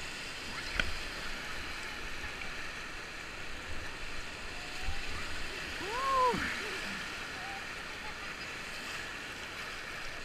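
Rushing whitewater of a river rapid washing around an inflatable kayak, a steady wash of water noise. About six seconds in, a short voice cry rises and falls.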